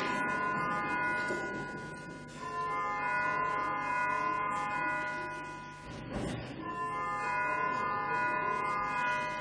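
Call-to-vote bell ringing in a parliament chamber: a steady chime tone sounding in three long stretches of about three to four seconds each, with brief breaks between them, signalling that a vote is about to begin.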